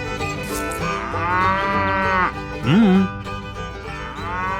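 Cattle mooing, three calls that rise and fall in pitch, over background music.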